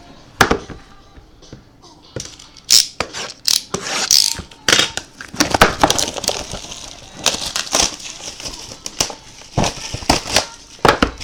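Trading-card packaging and cards being handled: wrapper crinkling and tearing with many sharp clicks and snaps.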